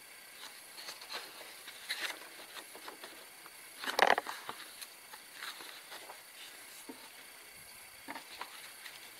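Thin paper pages of a paperback colouring book being turned by hand: scattered soft rustles, with one louder page turn about four seconds in.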